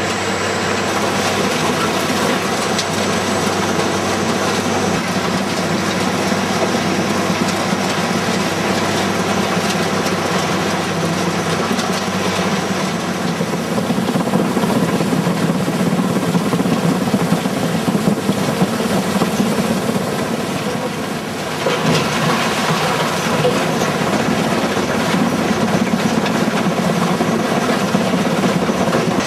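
GIPOKOMBI RC 130 C mobile crushing and screening plant running under load, a steady, loud mechanical din of its engine and of rock being crushed. The noise dips briefly about three quarters of the way through, then carries on.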